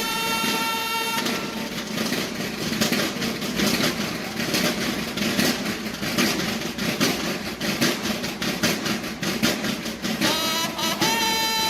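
Mexican banda de guerra, a drum and bugle band: a bugle call holds a note for about a second, then the drums play dense, rapid rolls and beats, and the bugles come back in near the end.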